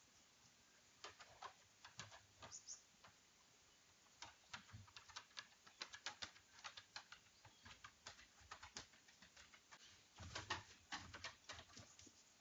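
Faint, irregular light clicks and taps, scattered in small clusters, with a busier run of louder taps about ten seconds in; no barking is heard.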